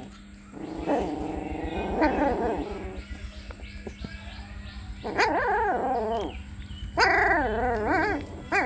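Puppy crying: high, wavering whines and yelps in three bouts, about a second in, around five seconds in and around seven seconds in, over a steady low hum.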